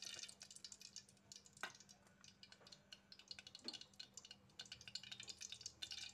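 Faint, sparse crackling and ticking from cooking oil heating in an aluminium pot on a gas burner, with a soft knock about one and a half seconds in.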